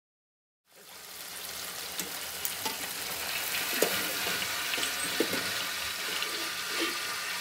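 Chicken pieces deep-frying in hot oil in a Cuisinart electric deep fryer: a steady sizzle with scattered pops and crackles, starting about a second in.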